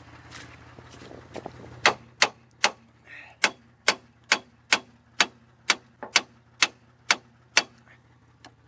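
A hammer striking a seized rear brake drum, a dozen or so sharp ringing metal blows at a steady two to three a second, starting about two seconds in. The brake shoes are locked onto the drum and the blows are meant to knock it loose.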